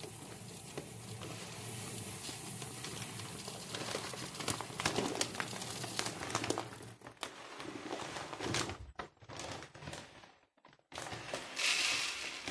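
Water being poured into a planted aquarium over its soil substrate, a steady splashing hiss with irregular crackles and crinkling of plastic. It breaks off briefly about ten seconds in, then comes back in a short louder burst.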